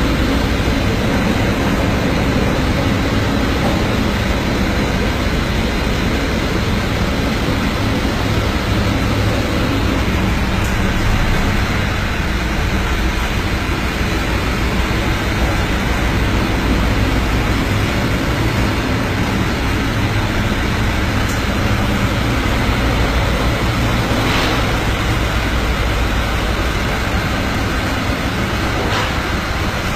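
Stormy sea heard from aboard a ship: a steady loud rush of wind and breaking waves over a deep rumble.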